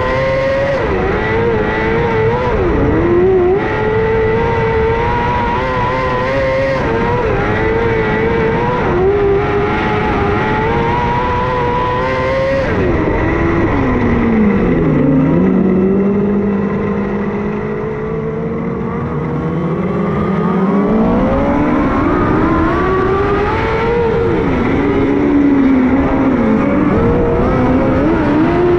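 Onboard sound of a micro sprint car's engine at racing speed, its pitch rising and falling as the throttle comes on and off. About halfway through it drops away to a low, steady run for several seconds, then builds up again.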